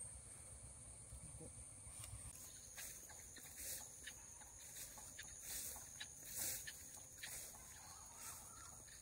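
Faint, steady high drone of insects such as crickets. From a few seconds in it is joined by irregular swishing of footsteps through tall, wet grass, about one a second.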